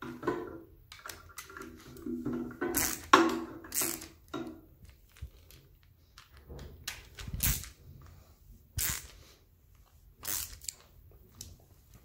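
Hand screwdriver turning self-tapping screws into a new plastic housing. The screws creak for the first few seconds as they cut their own threads, which makes them hard to turn. Several sharp clicks and knocks of the tool and parts follow.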